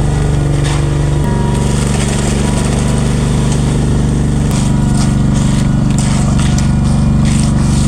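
Concrete mixer truck's diesel engine running hard and steadily, its note shifting slightly about a second in and again partway through.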